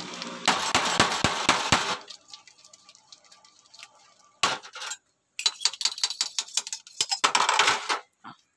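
Kulukki sharbat shaken in a glass tumbler capped with a second vessel: rapid rattling clinks of glass. The clinks come in two bouts, with a short pause and a single knock between them.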